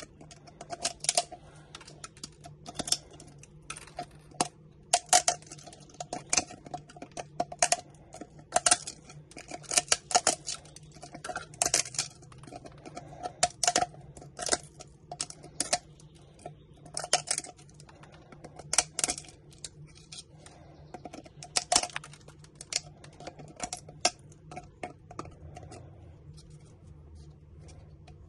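Needle-nose pliers breaking stiff white PETG 3D-print support material off a printed part: irregular sharp plastic clicks and cracks, often several in quick succession.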